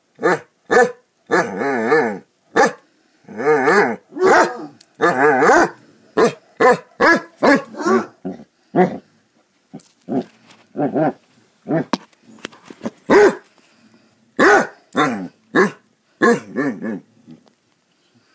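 Basset hounds barking in play: a quick run of short barks mixed with a few longer, wavering, howl-like barks, thinning out and stopping near the end.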